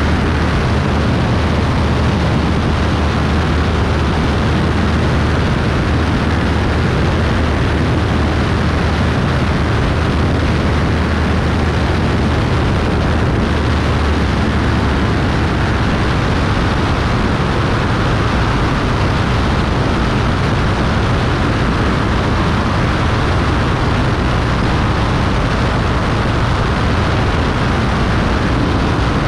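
Beechcraft Bonanza B35's six-cylinder piston engine and propeller droning steadily in flight, with a loud rush of air. The deep drone softens a little about halfway through.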